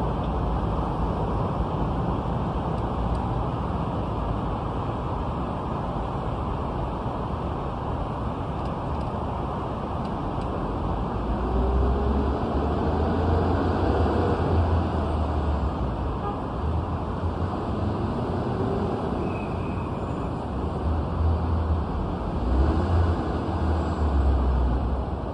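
Street traffic heard from above: a steady hum of cars, with a deeper low rumble as heavier vehicles pass about halfway through and again near the end.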